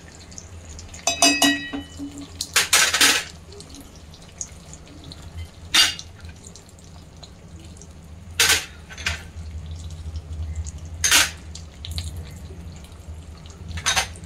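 Spice bowls and a glass jar knocking and clinking against the rim of a hammered aluminium pot as powdered masalas are tipped in: about six sharp knocks spread apart, the first with a brief ringing. A steady low hum runs underneath.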